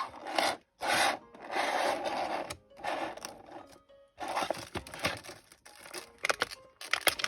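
Rubbing and scraping of figure packaging being handled, a run of rough strokes, with a few sharp clicks near the end.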